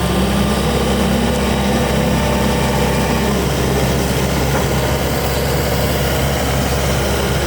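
Skid steer engine running steadily, with a slight change in its note about three seconds in.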